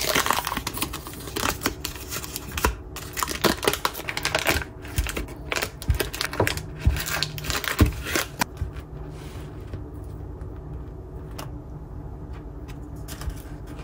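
Kitchen prep sounds: a quick run of small clicks and knocks from a knife and dishes on a cutting board as a baguette is cut and buttered, thinning to a few scattered taps after about eight seconds.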